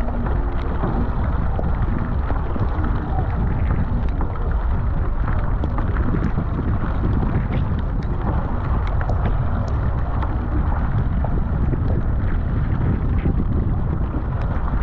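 Wind buffeting the microphone of a deck-mounted camera on a surfski, with water splashing from the paddle strokes and scattered ticks of rain drops.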